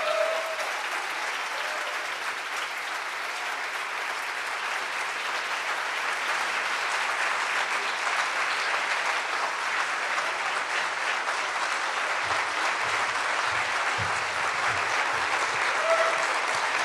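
Audience applauding steadily after a performance, the clapping growing a little louder about six seconds in, with a few low thumps near the end.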